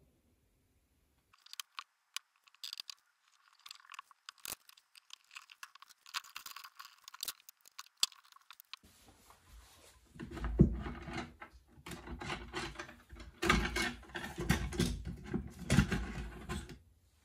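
Hands at work on a small wooden tray's glue-up. About a second in, light crackly scratching and clicks begin. About halfway through, these give way to louder knocks and rattles as the walnut frame is set into a Veritas 4-way speed clamp and the clamp is handled.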